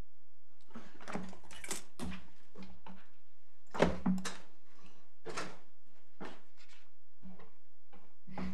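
Paper pages of hearing bundles being leafed through. A run of irregular rustles and soft knocks, the loudest about four seconds in, over a low steady hum.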